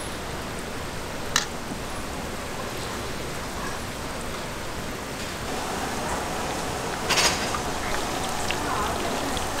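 Hot oil sizzling steadily as battered street food deep-fries, with a sharp click about a second in and a brief louder clatter about seven seconds in.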